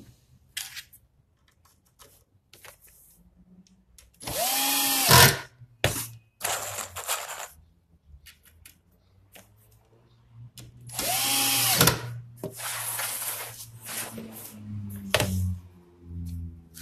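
Electric drill driving screws into an MDF cabinet panel: two short runs of about a second each, about four and about eleven seconds in, the motor's whine rising as it spins up and falling as it stops. Short knocks of panels being handled in between.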